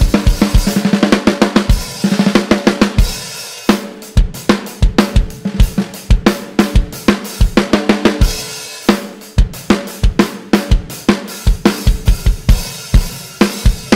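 Drum kit played with sticks to show off a Mapex Black Panther Sledgehammer snare, a 14x6.5-inch hammered-brass drum, with kick drum and hi-hat/cymbal alongside. The snare has a deep sound with a bright ringing overtone. Fast, dense strokes give way about four seconds in to a sparser beat of spaced hits.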